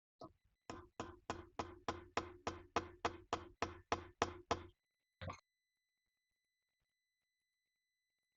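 A run of about fourteen evenly spaced knocks, roughly three a second, then one more knock after a short pause, followed by a faint steady high-pitched whine.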